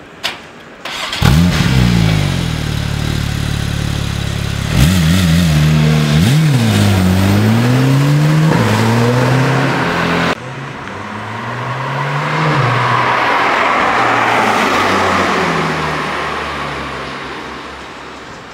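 Porsche 991 Turbo Cabriolet's twin-turbo flat-six starting with a sudden loud flare about a second in and settling to idle. A few seconds later it revs up and the car pulls away, the engine pitch rising and falling several times. After a cut the car is heard again, its sound swelling and then fading.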